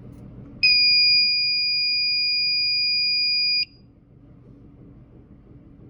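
Fire alarm sounder giving one steady, high-pitched electronic tone for about three seconds as its notification appliance circuit is switched on. The tone starts about half a second in and cuts off suddenly.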